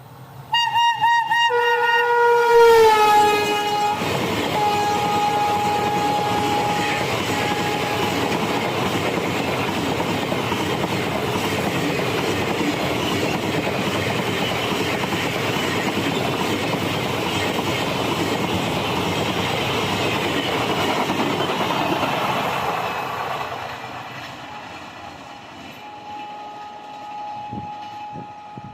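Rajdhani Express passing at high speed. Its WAP-7 electric locomotive sounds a long, shrill horn whose pitch drops as it goes by, followed by about twenty seconds of the coaches' steady rushing and clickety-clack that fades away. A fainter horn sounds again near the end.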